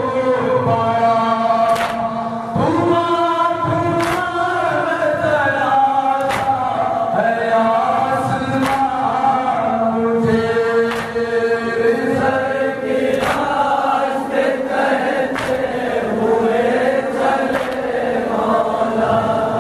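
A noha, a Shia lament, chanted by a male reciter with a group of men joining in, in long, held, rising and falling lines. Sharp strikes fall in time about every two seconds, which fits rhythmic chest-beating (matam) by the mourners.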